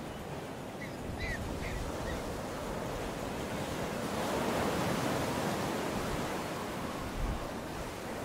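Sea surf washing onto the shore as a steady rush, swelling louder around the middle. A few faint short high chirps come about a second in.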